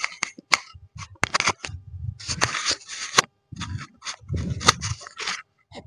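Handling noise close to the microphone: an irregular run of clicks, scrapes and rustles, with dull low bumps among them.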